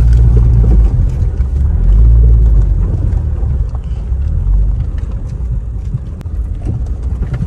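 Low rumble of a Honda car's engine and tyres on a dirt road, heard from inside the cabin while driving; loud at first, easing off after about three seconds.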